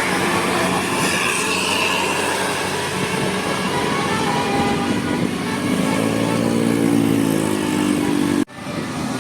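Road traffic noise with a large bus engine running; near the end the engine's pitch rises and falls as if revving or passing, and the sound cuts off abruptly about eight and a half seconds in.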